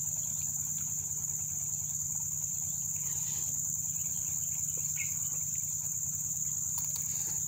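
Steady high-pitched insect chorus, with a short slurp of noodles about three seconds in.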